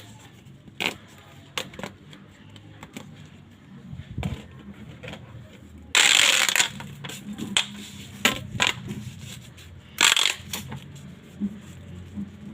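Plastic pop light toy being squeezed and handled, giving crunchy clicks and crackles, with two louder crunches of about half a second, about six and ten seconds in.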